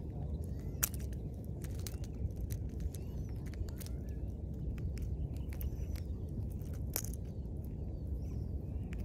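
Sharp, irregular metal clicks and scrapes of fishing pliers working a lure's hook out of a caught fish's mouth, over a steady low rumble.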